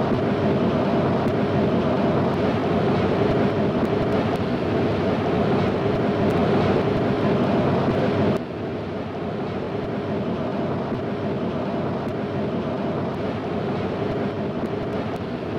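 Washington Metro subway train in an underground station: a loud, steady running noise that drops suddenly to a quieter steady hum about eight seconds in.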